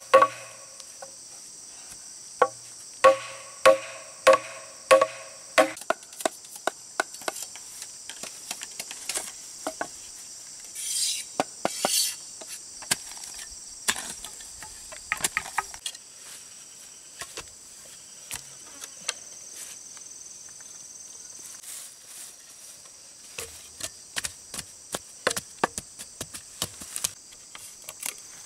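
Machete chopping a green bamboo pole: a quick run of loud strikes, each with a short pitched ring, over the first six seconds. Scattered sharper knocks and taps of bamboo follow. Steady high chirring of insects carries on throughout.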